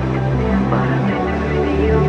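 Electronic music: held synthesizer notes changing pitch over a steady low bass.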